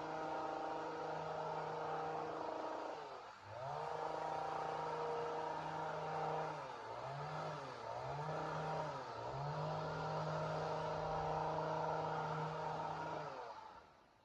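Chainsaw running at high revs, its pitch dropping and recovering briefly about three seconds in and several more times in the middle, then dying away near the end.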